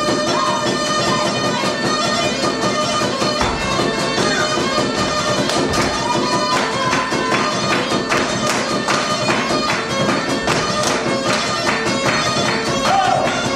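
Traditional folk music: a held, droning wind-instrument sound with melody over it and a steady percussive beat that becomes busier about halfway through.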